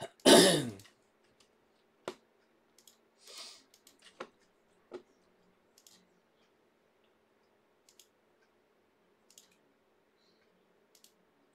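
Scattered faint clicks and taps from handling things at a desk, a few seconds apart, over a faint steady hum. A short, louder sound comes right at the start.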